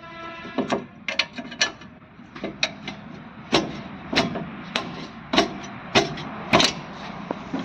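Hand tools working on a car's rear brake pipe fitting: sharp metal clicks and knocks of a 10 mm spanner on the union, irregular at first, then coming regularly about every half second in the second half.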